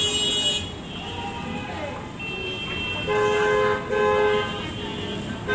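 Vehicle horns in street traffic: a horn blast that cuts off about half a second in, then two short toots about three and four seconds in.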